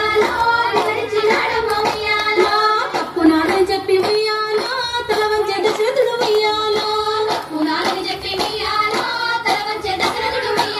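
Singing of a Bathukamma folk song over a steady beat of hand-clapping.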